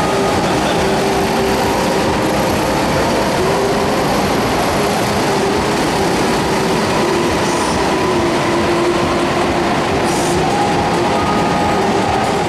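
Several go-kart engines running as karts lap an indoor track, a steady, continuous engine noise echoing in the hall, with the engine notes shifting slightly in pitch as karts pass.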